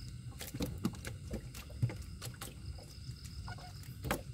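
Irregular sharp wet slaps and splashes, about seven in four seconds, from netted silver barb and water, over a low steady rumble.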